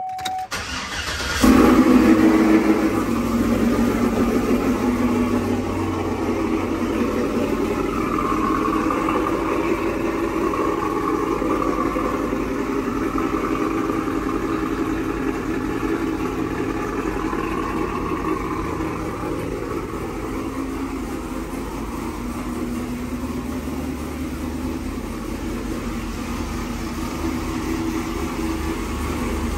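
Cold start of a cammed GMC Sierra's LS V8. It cranks and catches about a second and a half in with a loud flare, then settles into a steady fast idle that slowly grows quieter.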